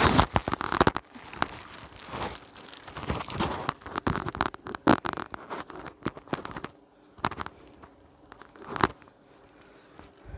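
Cloth rustling and crinkling as a stitched fabric sleeve is handled and laid out on a table, with irregular sharp clicks and taps. The clicks come in a dense cluster at the start, with single loud ones near the middle and about nine seconds in.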